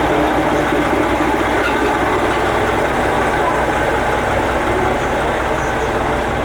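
KiHa 40 diesel railcar's engine idling steadily while the train stands at the platform.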